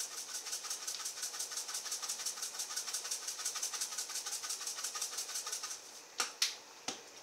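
Hand-twisted spice grinder grinding fennel, a fast ratcheting click at about eight clicks a second. It stops about six seconds in, followed by a couple of short knocks.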